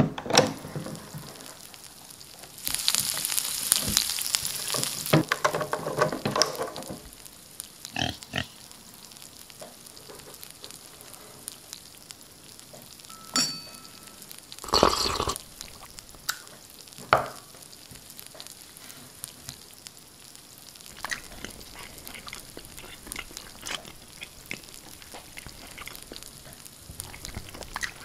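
Electric sandwich toaster lid clacking shut, then a few seconds of loud sizzling. Several short knocks and clatters follow.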